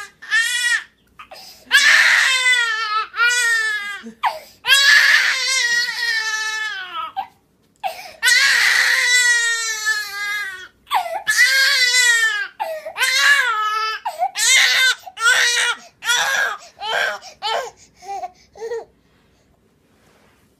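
Infant crying loudly in long wails that sag in pitch, each a couple of seconds long; in the last few seconds the cries grow short and choppy and stop about nineteen seconds in.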